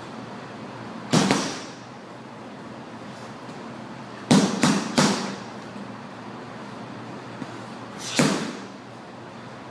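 Gloved punches landing on a hanging Life Fitness heavy bag: a single hit about a second in, a quick flurry of three near the middle, and another single hit near the end.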